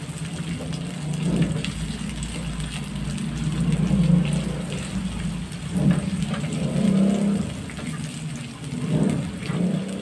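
Garlic and onion sizzling in hot oil in a ceramic-coated wok, a steady crackling hiss, with the silicone spatula stirring and scraping through them in uneven strokes.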